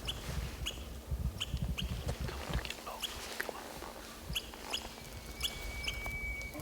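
Short high chirps of a small animal repeating about twice a second, over a low rumble that fades after the first half, with one steady high whistle held for about a second near the end.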